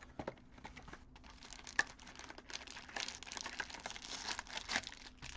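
Wrapped trading-card packs crinkling and rustling as they are lifted out of a cardboard hobby box, with small clicks of the packs against the cardboard. The handling is busier from about two and a half seconds in, with one sharper tick a little before that.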